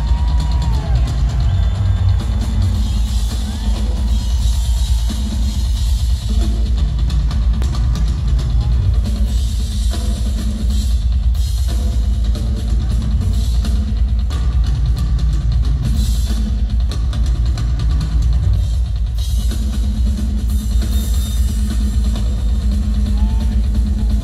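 Rock drum kit played live through an arena PA, dominated by heavy kick drum with snare and cymbals, heard from the crowd.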